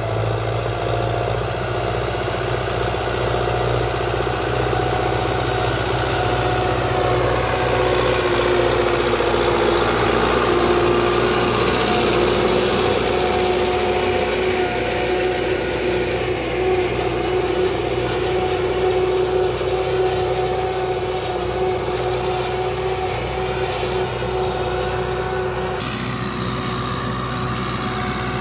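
Belarus 511.1 tractor's diesel engine running steadily while pulling a disc harrow through the field. It grows louder as the tractor passes close by about halfway through, then fades a little as the tractor moves away.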